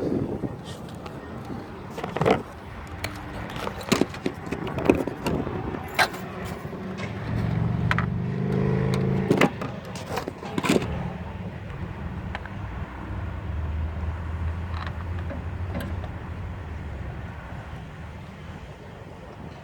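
Scattered clicks, knocks and sharp thuds with some jangling of keys, typical of someone handling a pickup truck's door and hood and getting to the battery. A low hum rises for a couple of seconds near the middle and again more faintly later.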